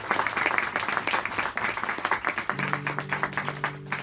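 A small audience applauding, thinning out as an acoustic guitar starts ringing chords about two and a half seconds in.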